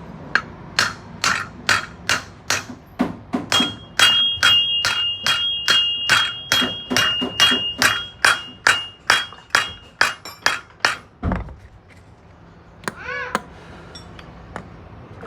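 Steady hammer blows on metal suspension parts, about two a second, with a high metallic ring over the middle strikes. The hammering stops about eleven seconds in and one dull thud follows.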